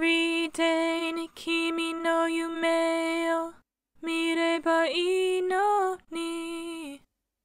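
Soloed backing-vocal (chorus harmony) track playing back: a singing voice heard on its own, holding long steady notes in short phrases with brief silent gaps, with a more moving melodic line just after the middle, stopping about seven seconds in.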